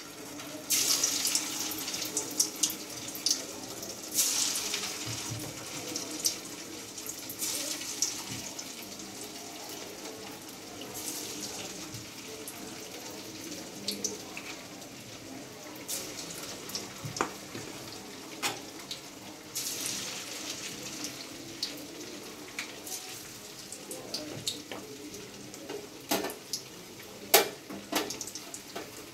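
Marinated chicken pieces deep-frying in hot oil in an aluminium kadai: a steady sizzle full of small pops and crackles. The sizzle surges louder every few seconds as more pieces are dropped in.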